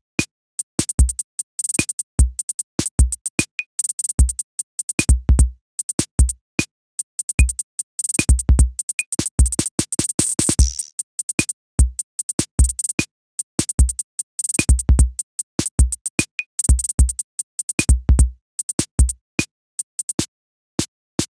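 Background electronic music: a stop-start drum-machine beat of low kick drums and sharp clicks, with short silent gaps between phrases.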